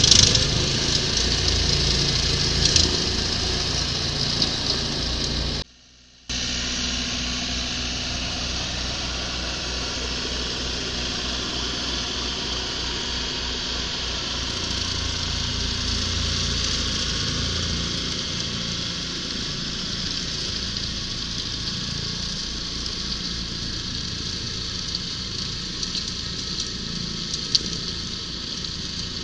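John Deere compact tractor engine running steadily while mowing tall grass with a rear-mounted rotary mower. There is a brief dropout about six seconds in.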